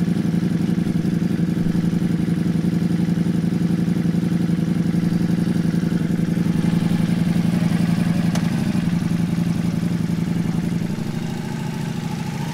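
Ducati Multistrada V4S's V4 engine idling steadily close by, slightly quieter near the end.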